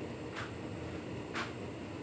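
Hotpoint Ultima S Line tumble dryer running with a steady hum as the drum turns, and a light tick about once a second.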